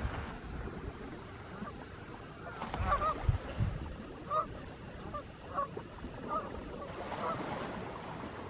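Waterfowl honking: a series of short calls scattered through a few seconds, with a couple of low thumps about three seconds in.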